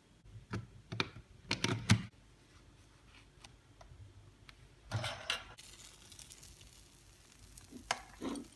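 Small clicks and knocks of handling clatter: a quick run of knocks in the first two seconds, another cluster about five seconds in, and one more near the end.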